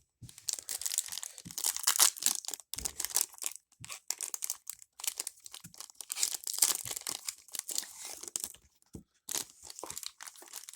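Foil Pokemon booster pack wrapper being torn open and crinkled, an irregular crackling with short pauses.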